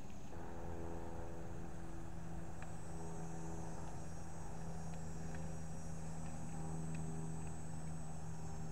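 A steady low mechanical hum with several held tones, like a motor running, with a couple of faint clicks.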